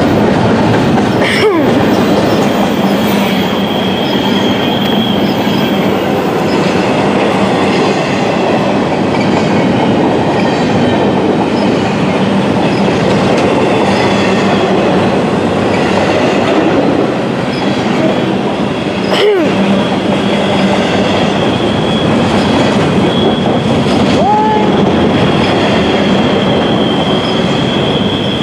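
Double-stack intermodal freight cars rolling past close by: a loud, steady rumble of steel wheels on rail. A thin, high wheel squeal rides on top a few seconds in and again over the last several seconds.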